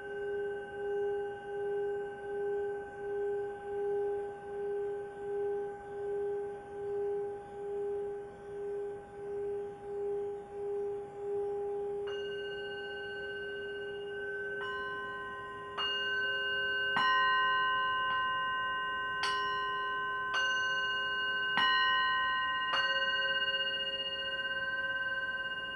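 Small hand-held metal singing bowl rubbed around the rim with a mallet, singing one steady tone that swells and fades about twice a second. From about halfway it is struck with the mallet about nine times at roughly one-second intervals, each strike ringing on and overlapping the last.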